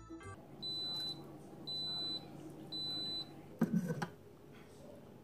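Coffee maker beeping three times, evenly spaced half-second high tones, signalling that the brew is finished. About three and a half seconds in, a short clatter as the ceramic mug with a spoon in it is lifted off the machine.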